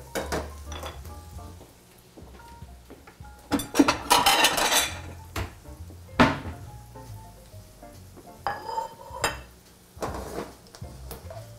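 Metal tongs clinking and scraping in a frying pan as chopped kale and bacon are stirred and tossed. The knocks are irregular, with a louder clatter about four seconds in and a sharp knock a couple of seconds later.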